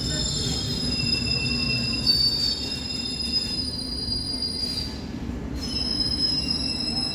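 London Underground District line S7 stock train rolling with its wheels squealing in several steady high tones over a low rumble. The squeal drops out briefly a little after five seconds in, then returns.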